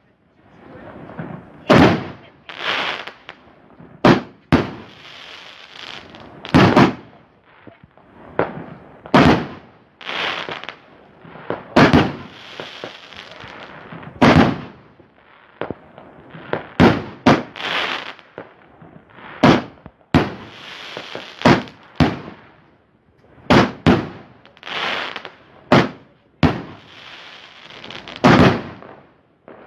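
Fireworks going off in a long string of loud bangs, one every second or two, many trailing off in a hiss.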